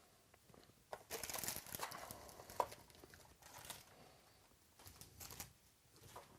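Crinkly packaging being handled and rustled in bursts: a long stretch about a second in, then shorter ones about three and a half and five seconds in.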